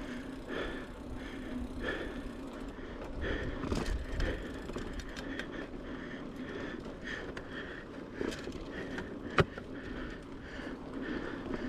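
Mountain bike rolling over a dirt trail, tyres and frame rattling, with the rider's heavy breathing coming in quick regular pulses. A sharp knock about nine seconds in.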